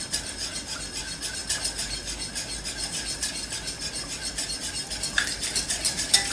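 A wire balloon whisk beats thin, watery mustard in a ceramic mixing bowl: quick, even strokes at about five a second, with the wires clinking against the sides of the bowl. There is one louder clink near the end.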